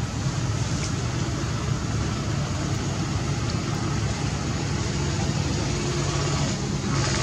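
Steady outdoor background noise: an even low rumble with hiss, no distinct events or animal calls.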